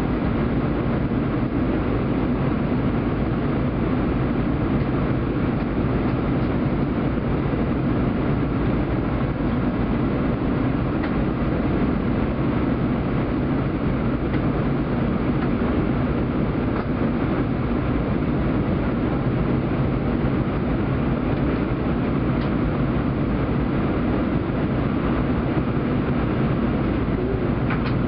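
Steady cabin noise of an Airbus A320 in flight on descent: engine drone and airflow rushing past the fuselage, heard from a window seat beside the engine.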